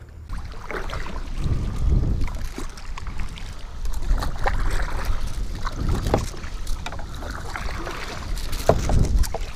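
Kayak being paddled: water splashing and sloshing with the paddle strokes and around the plastic hull. A low wind rumble on the microphone swells and fades a few times.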